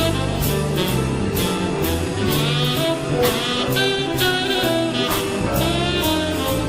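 Background jazz music: a saxophone-led melody over walking bass and a steady swung beat.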